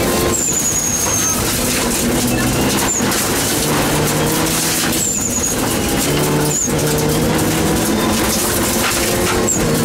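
Mitsubishi Lancer Evo 7's turbocharged four-cylinder engine at full rally pace, heard from inside the cabin, its pitch climbing and dropping back with each gear change. Gravel rattles against the underbody throughout, with a few short, high falling whistles.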